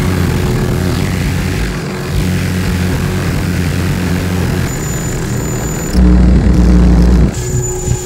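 Loud electronic noise music played live through speakers: a dense, rumbling drone with heavy bass. About six seconds in, a louder deep bass tone cuts in for just over a second, with a thin high whistle above it.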